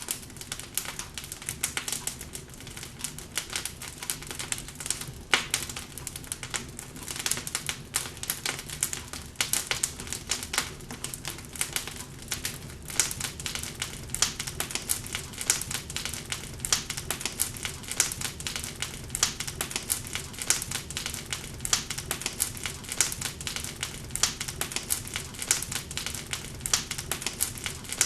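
Wood fire in a fireplace crackling, with many small irregular snaps and pops over a low steady rumble of the flames.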